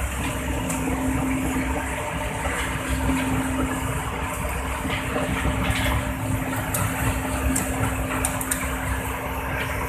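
Excavator's diesel engine running at high throttle while the hydraulics work, a dense steady noise with a steady hum setting in just after the start. Scattered light clicks and knocks in the second half.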